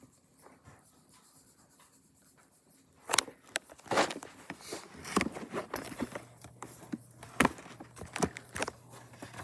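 Eggs being cracked: a series of sharp taps and knocks against the edge of a bowl, starting about three seconds in, with kitchen handling sounds between them.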